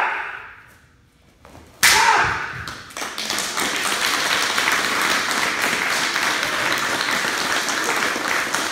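A single loud, sharp crack as a wooden stick strikes in a breaking demonstration, about two seconds in, followed by steady applause and cheering from the audience.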